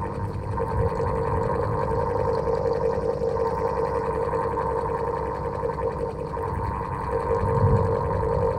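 Old electric fan running steadily with a constant droning hum over a low, fluttering rumble.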